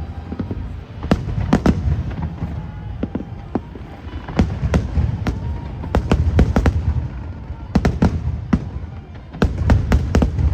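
Fireworks display: aerial shells bursting in quick clusters of sharp bangs, several bursts every second or so, over a continuous low rumble.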